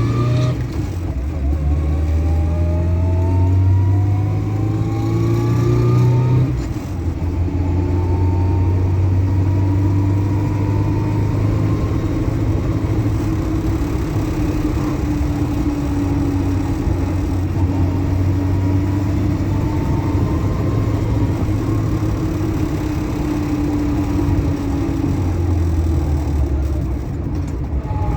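Keeway RKV 125 motorcycle engine accelerating hard. Its note climbs steadily in pitch for about six seconds, drops at a gear change, then holds a fairly steady note while cruising, easing briefly near the end.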